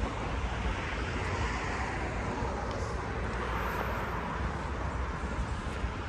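Street traffic: a car passing, its noise swelling and then fading over a few seconds.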